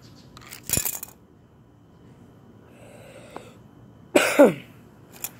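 A short metallic clatter of pliers against metal and concrete just under a second in, then a person coughing about four seconds in.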